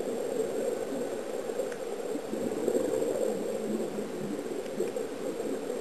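Steady muffled bubbling and hiss of air escaping underwater from air-fed sea-walking helmets.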